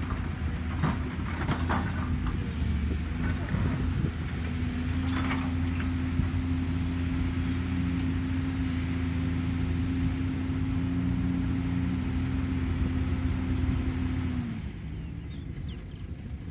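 Caterpillar excavator's diesel engine running steadily, with a few short knocks in the first couple of seconds and again about five seconds in; near the end the engine note drops away suddenly.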